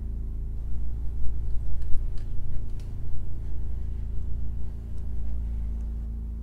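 Low, steady rumbling drone with a steady hum over it, and a few faint clicks through the middle.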